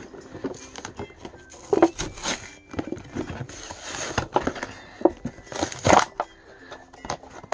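A toy monster truck's plastic blister pack and cardboard backing being crinkled and torn open by hand: irregular crackling and tearing, with louder rips about two, four and six seconds in.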